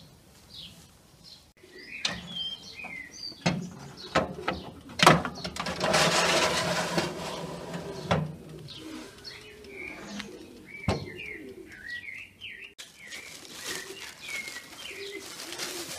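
Small birds chirping and a dove cooing throughout, with several sharp clatters and a stretch of metal scraping around the middle as a baking tray is slid onto an oven rack. Near the end a plastic bag rustles.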